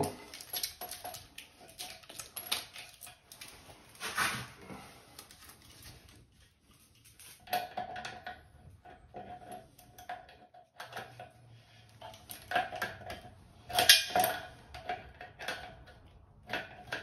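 Metallic clicks and clinks of a small adjustable wrench on the nuts of braided supply hoses as they are tightened onto faucet tailpieces. The knocks come irregularly, with the loudest about fourteen seconds in.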